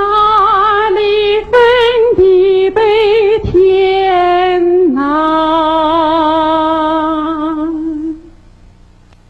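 A woman singing a slow Chinese song phrase with vibrato, several notes followed by one long held note that fades out about eight seconds in.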